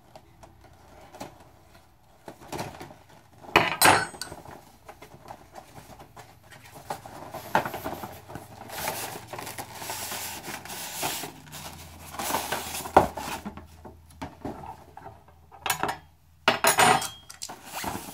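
A cardboard model box and its white inner packaging being handled and slid about on a wooden tabletop: irregular scraping and rubbing, broken by several sharp knocks as the packaging meets the table.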